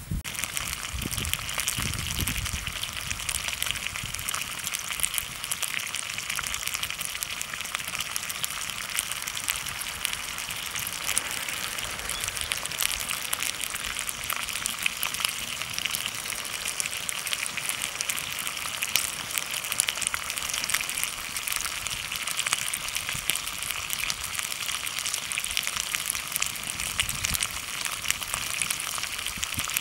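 Food sizzling and spitting in a hot skillet, a steady crackling hiss that starts suddenly and runs on evenly, with a couple of dull knocks of the pan or utensils.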